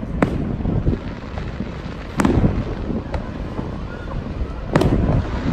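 Aerial fireworks shells bursting overhead: three sharp bangs about two and a half seconds apart, the last two the loudest, with fainter pops between them over a steady low rumble.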